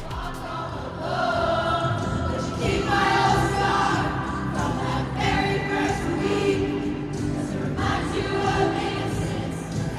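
Music with several voices singing together over a steady low accompaniment.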